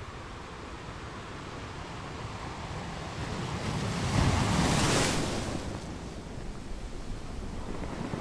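Ocean waves washing on a shore: a steady rush of surf that swells into one louder breaking wave about four to five seconds in, then draws back.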